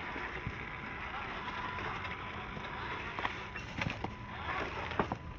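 Traxxas TRX4M mini RC crawler driving, its motor and steel transmission gears whining, the pitch rising and falling with speed. Several sharp knocks come about three to five seconds in.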